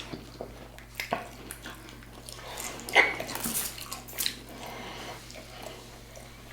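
Eating sounds close to the microphone: scattered short wet clicks and smacks of chewing and biting, with one louder one about three seconds in.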